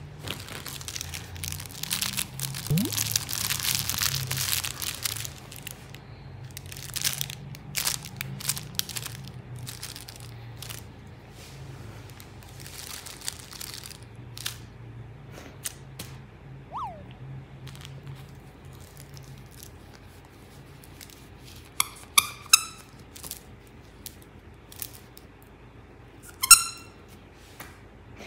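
Small Maltese dog chewing and pawing a plush toy on a fabric mat: crinkly crunching and rustling, densest in the first few seconds, then scattered clicks. Near the end come two short, high squeaks.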